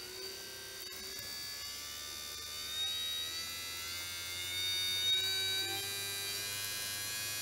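The small electric motor of an air-horn compressor, running on its own with the pump removed: a buzzing whine whose pitch slowly rises as it speeds up.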